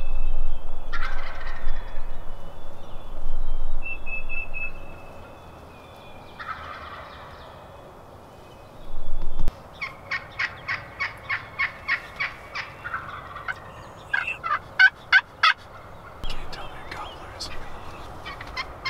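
Wild turkey tom gobbling twice, then a fast run of short calls at about four a second.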